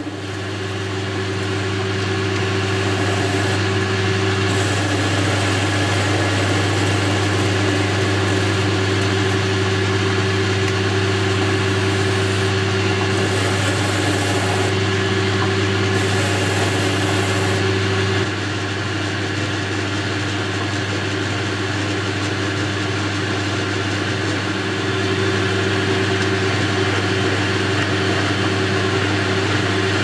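Boxford metal lathe running steadily with a low motor hum while a tool turns down a small rod held in the chuck. The sound drops a little about eighteen seconds in and comes back up around twenty-five seconds.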